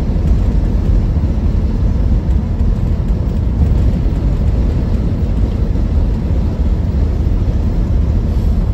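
Triumph Stag's V8 engine burbling steadily at cruising speed, heard from inside the car together with a constant low road and wind rumble.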